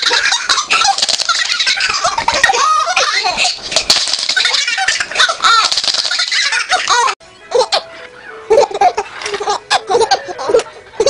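A baby laughing loudly in long, continuous fits. About seven seconds in it cuts off abruptly and gives way to a second baby's shorter, separate bursts of laughing and babbling.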